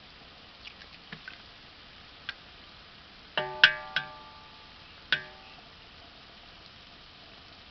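Sharp taps on the rim of a large aluminium cooking pot, each with a short metallic ring, as eggs are cracked into it. A few faint ticks come in the first second and a half, then three louder taps come close together about three and a half seconds in, and one more a little after five seconds.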